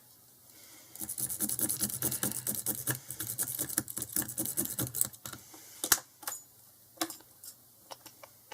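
Lock pick raked rapidly in and out of a Squire SS50C padlock's keyway, a dense run of small metallic clicks from the pins for about four seconds, then a few separate sharper clicks.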